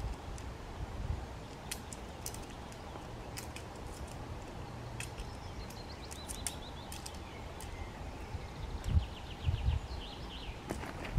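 Small birds chirping in the woods over a steady outdoor hiss, with a run of quick chirps near the end. Scattered clicks and a few low thumps come from someone moving about, the heaviest a little before the end.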